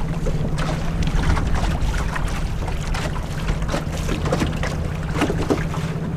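Wind buffeting the microphone over choppy river water, with small waves slapping against the boat's hull. A steady low hum runs underneath throughout.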